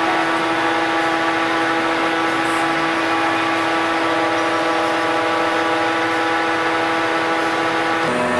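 Metal lathe turning a steel rod, a steady whine with several overtones over the noise of the cut. About eight seconds in the pitch steps down.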